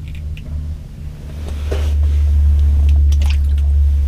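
Rustling and knocking of clothing and gear as someone shifts about in a small ice-fishing shelter, over a steady low rumble that swells about a second and a half in.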